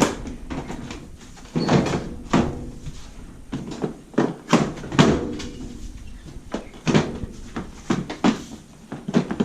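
The washing machine's top cover is turned and worked into place on the cabinet, giving a string of irregular knocks and clunks.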